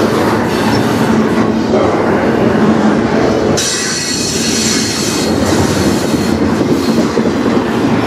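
Loaded double-stack intermodal well cars of a freight train rolling past close by, a steady rumble of steel wheels on rail. About halfway through, a high-pitched wheel squeal rises over the rumble for about two seconds, then fades.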